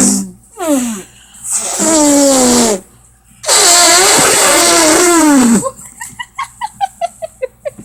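Young women imitating elephant trumpeting with their voices: three loud, strained calls, each sliding down in pitch at the end, the last the longest. Near the end the calls give way to rapid giggling laughter.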